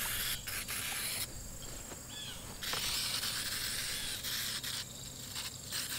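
Aerosol can of engine degreaser spraying onto a chainsaw in three hissing bursts with short pauses between them.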